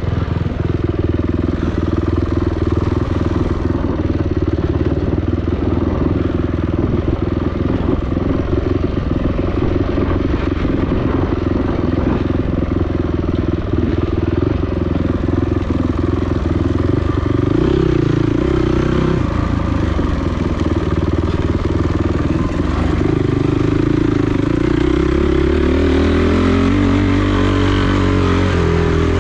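Off-road dirt bike engine running hard under throttle. Its pitch rises and falls as it revs up and down, most clearly in the second half.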